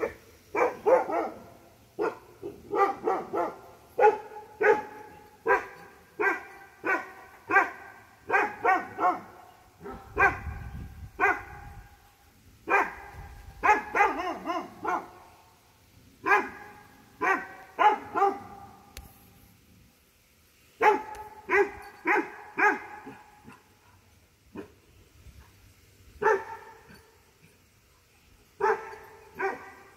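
Dog barking repeatedly at a white-tailed deer, in runs of several quick barks broken by short pauses.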